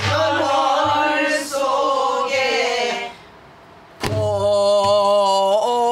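Korean pansori-style singing of a danga line in a slow, wavering chant, with strokes on a buk barrel drum: one at the very start and another about four seconds in. The singing breaks off for about a second between phrases just before the second stroke.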